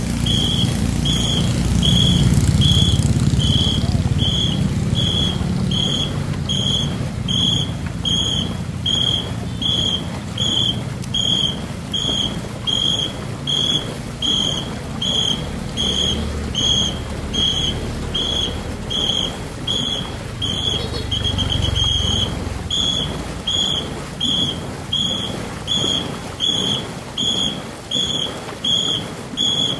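Pacing whistle blown in short, even blasts a little over half a second apart, setting the paddle stroke of a ghe ngo long-boat crew, with a quick run of faster blasts about two-thirds of the way through. A low rumble runs underneath, loudest at the start.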